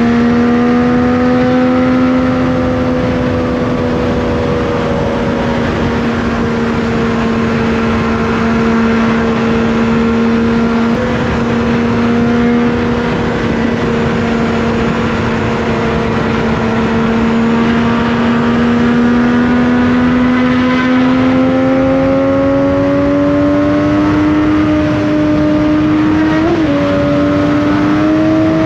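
Triumph Daytona 675's inline-three engine running at a steady cruise, its pitch holding level and then climbing gradually over the last several seconds, with a brief jump in pitch near the end. A steady rushing noise runs underneath.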